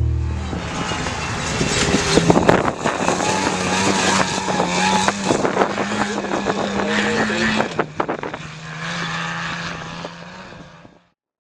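Class 7S desert race truck's engine running hard at a fairly steady pitch, with many sharp knocks and rattles over it. About eight seconds in the engine pitch drops slightly, and the sound fades out near the end.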